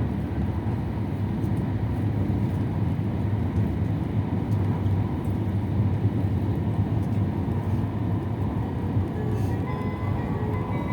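Steady running rumble of an E7-series Shinkansen heard inside the passenger cabin. Near the end the on-board chime begins: a melody of clear, bell-like notes.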